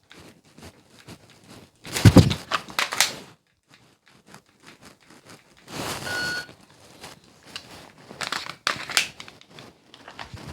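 Dry-fire drill handling noise: holster, clothing and pistol rustling and clicking through a draw, trigger presses and a reload, with one short electronic shot-timer beep about six seconds in marking the par time.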